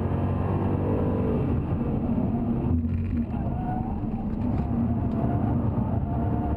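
2013 Jaguar XKR-S's supercharged 5.0-litre V8 heard from inside the cabin, running hard at track speed, with a brief dip in the engine note about three seconds in.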